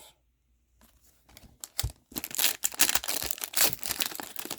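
Foil hockey card pack wrapper being torn open and crinkled by hand, starting about two seconds in after a near-silent pause.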